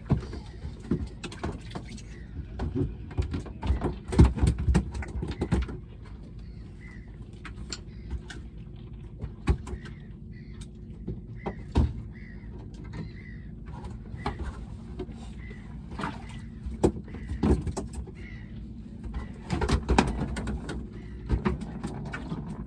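Irregular knocks and clunks aboard a small fishing boat as freshly caught mackerel and tackle are handled, busiest in the first few seconds and again near the end. Faint short bird calls come in the quieter stretch between.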